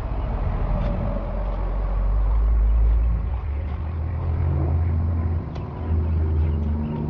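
Low rumble of road traffic, swelling about three seconds in and then settling into a steady engine drone, with a few faint clicks of a long-handled tool working through sticks and debris in the water.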